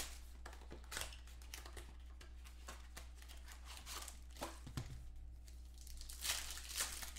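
Plastic and foil wrapping of a football trading card box and pack being torn open and crinkled by hand, in short rustling bursts, the loudest near the end.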